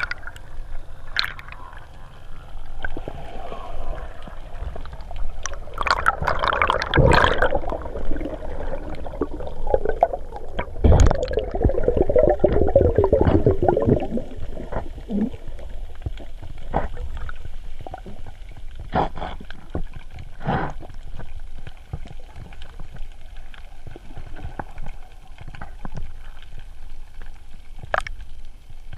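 Muffled underwater sound of a GoPro in its waterproof housing: water swirling and bubbles gurgling past the camera while swimming, louder in two stretches in the first half, with scattered small clicks and knocks.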